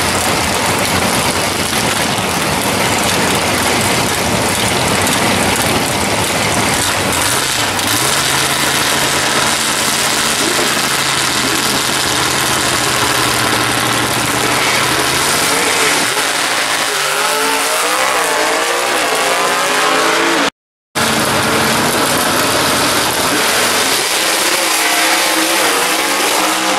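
Muscle-car drag racers' V8 engines held at steady high revs on the starting line, then launching and accelerating hard away down the strip, the pitch climbing in steps through the gears. After a sudden brief dropout, another pair launches and climbs the same way.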